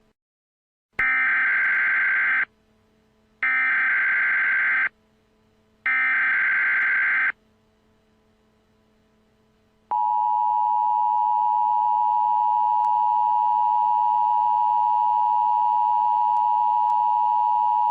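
Emergency Alert System tones: three bursts of warbling SAME header data, each about a second and a half long with a second's gap between them, then the steady two-tone EAS attention signal starting about ten seconds in. These tones announce a civil danger warning.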